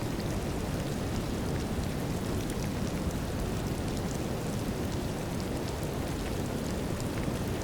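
Steady brown noise with light rain falling over it, scattered raindrop ticks sounding through an even low rushing hiss.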